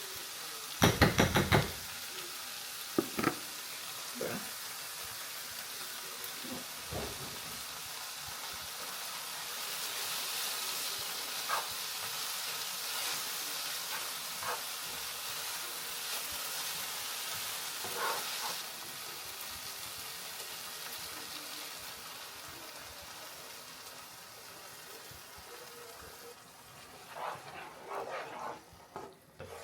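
Pan of mushrooms, spinach and cream cheese sizzling steadily while a utensil stirs it, tapping against the pan with a quick run of knocks about a second in and a few single taps after. The sizzle fades toward the end as the sauce starts to bubble, with more clatter of the utensil near the end.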